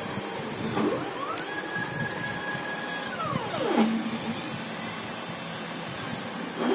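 Stepper motors of a DIY CNC thermocol-cutting machine moving its gantry. The whine rises in pitch as the axis speeds up about a second in, holds steady for about two seconds, then falls as it slows to a stop. Near the end it starts rising again for the next move.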